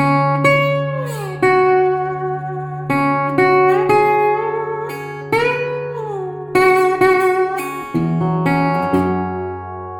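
Republic Duolian steel-bodied resonator guitar played with a slide in open F# minor tuning: plucked notes over a sustained low drone, with the melody gliding down and up between pitches and a change in the bass about eight seconds in.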